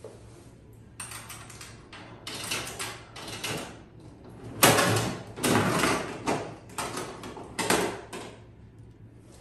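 Gachapon capsule-toy machine's dial being turned by hand: a series of ratcheting mechanical clunks and rattles, the loudest about halfway through, as a plastic capsule is dispensed.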